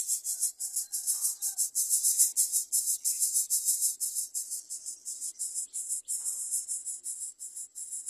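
Insects buzzing in a fast, high-pitched pulsing rhythm, several pulses a second, with a few faint chirps about a second in.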